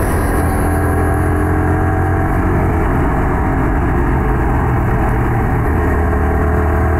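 Yamaha R15 V3 motorcycle's single-cylinder engine running steadily under way, its note shifting slightly about five to six seconds in.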